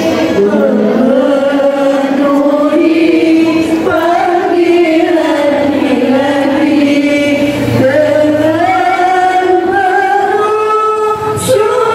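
Voices chanting together in unison, men and women, holding long notes that slide slowly up and down in pitch.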